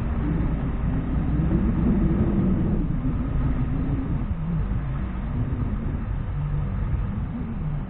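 The T30's engine running while driven off-road, its pitch rising and falling, loudest about two seconds in.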